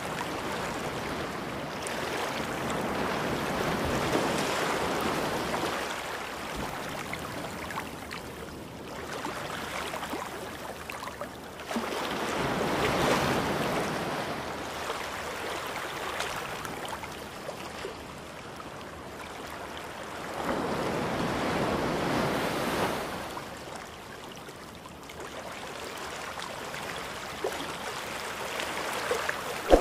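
A steady rushing, surf-like noise that swells and fades about every eight to nine seconds, like waves washing in.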